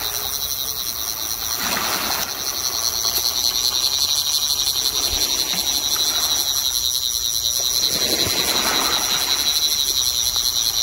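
Surf washing on the beach in swells every few seconds over wind rumble, with a steady high-pitched whine.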